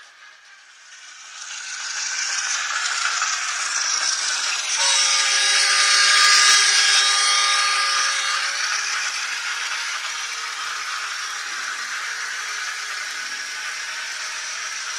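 The DCC sound decoder in an N-gauge DF11Z diesel locomotive model sounds a long horn blast of several tones held together, lasting about four seconds in the middle. It sits over a steady hissing noise that swells up about two seconds in.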